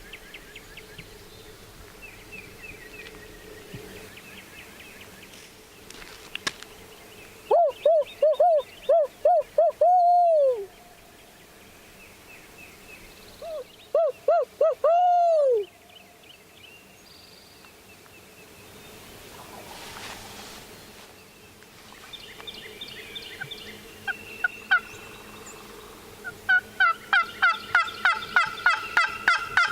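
A wild turkey gobbler gobbling twice, about 8 and 14 seconds in, each gobble a quick rattling run of notes. Faint songbirds sing behind it, and near the end a fast, steady string of higher bird calls starts up.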